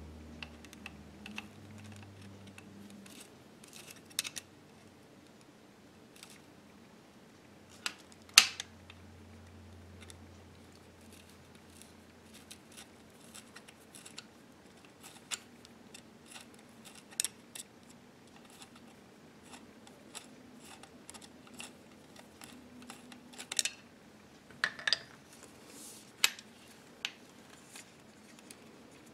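Scattered small clicks and taps of a screwdriver and small metal parts being handled while the magazine-latch screws are taken out of a BRS-99 carbine. The loudest is a sharp click about eight seconds in, with a few more close together near the end.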